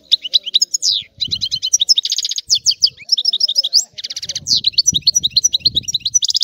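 European goldfinch singing a long, fast, twittering song of rapid chirps, trills and buzzy notes that breaks off near the end.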